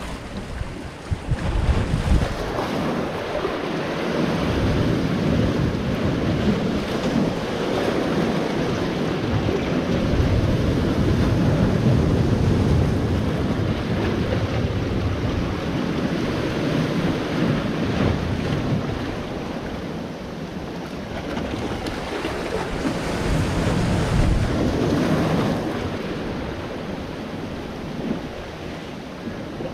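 Sea waves breaking and washing over shoreline rocks, a steady roar of surf that surges louder and eases off as the swells come in. Wind buffets the microphone with low rumbles in the first couple of seconds.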